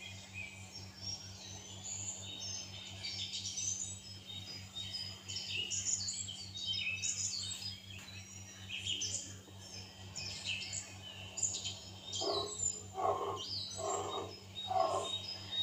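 Many small birds chirping and twittering in quick, high calls over a steady low hum. Near the end comes a row of about five lower calls, evenly spaced about half a second apart.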